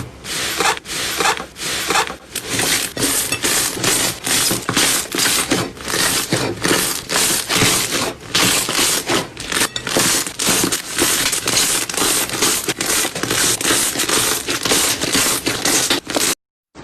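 Slime being squeezed and pressed by hand: a rapid, even run of squishing, crackling sounds, about three or four a second, that cuts off suddenly near the end.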